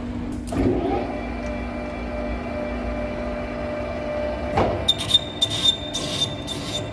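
TM-26120G centre lathe turning the Caterpillar D10 cylinder rod slowly at 70 RPM, a steady machine hum. From about five seconds in, a 12 mm button insert cuts into the steel near the rod eye with a high, steady squeal and rapid scraping pulses.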